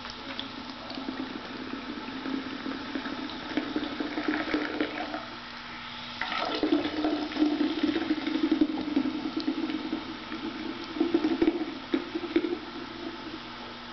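Carbonated soda being poured into a container, a steady splashing pour that gets louder from about six seconds in.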